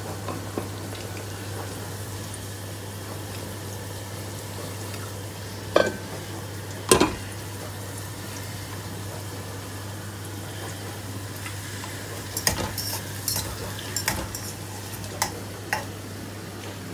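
Thick mutton curry gravy simmering in a stainless steel pot, with a wooden spatula stirring and knocking against the pot. Two sharp knocks about six and seven seconds in fit a glass lid being set on the pot, and scattered small clinks follow near the end.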